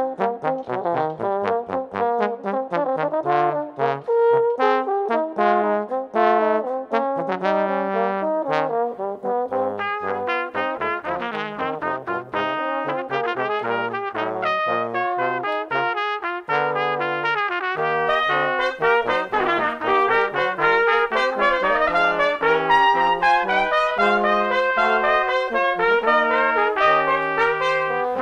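Brass quintet of trumpets, French horn and two trombones playing together: quick, short notes over a low trombone bass line.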